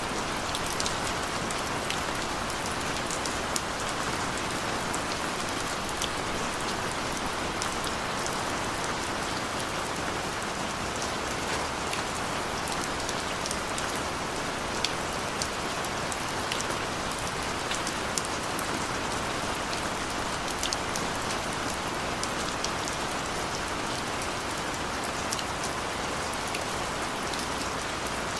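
Steady gentle rain: an even hiss of rainfall with many individual drops ticking sharply through it.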